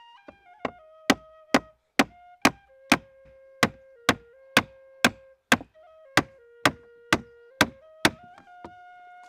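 A hatchet striking wood in a steady run of sharp blows, about two a second, over a flute melody.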